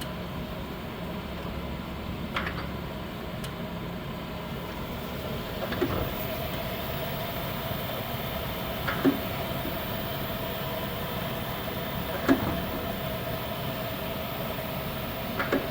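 Knuth RSM 1500C cylindrical grinder running with its wheel head in-feeding into the workpiece: a steady machine hum with a light tone over it, and a short click about every three seconds.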